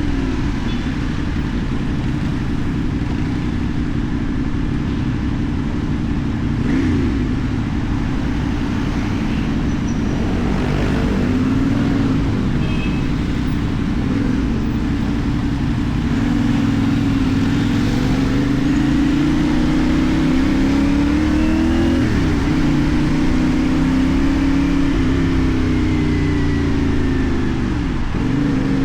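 CFMoto 450NK's parallel-twin engine breathing through a LeoVince aftermarket exhaust while riding. The engine note rises and falls in pitch, with several quick drops.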